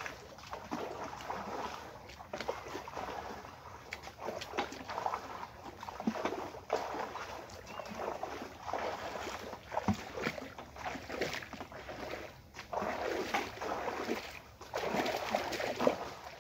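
Shallow muddy water splashing and sloshing in irregular bursts as a person gropes in it with his hands and then wades through it. The heaviest splashing comes near the end.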